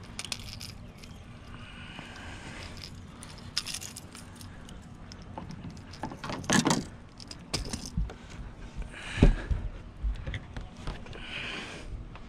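Small clicks, rattles and rustles of hands working a lure's hook out of a largemouth bass's mouth over a landing net, with a couple of louder knocks and rustles about halfway and three-quarters through.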